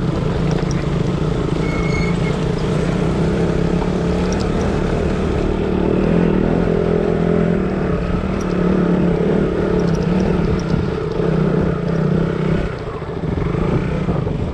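Motorcycle engine running steadily under way, heard from the rider's position over road and wind noise.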